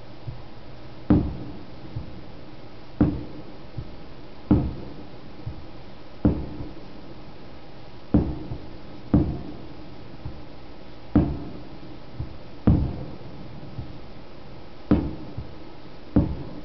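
Japanese aerial fireworks shells bursting: about ten loud booms a second or two apart, each trailing off in a short low rumble, with fainter pops between them.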